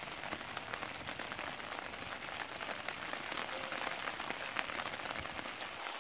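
Rain falling hard: a steady, even hiss of many small drop ticks.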